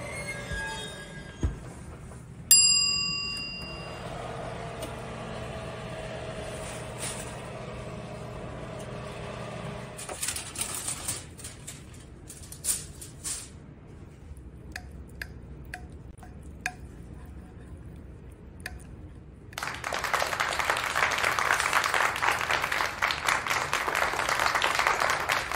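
Kitchen handling sounds with no speech: a low hum from the open oven, broken about two and a half seconds in by a sharp metallic clink that rings on briefly. About ten seconds in comes crinkling, as the aluminium foil is pulled off the braised beef roast, followed by scattered light clinks. A loud, steady crackling rustle runs through the last six seconds.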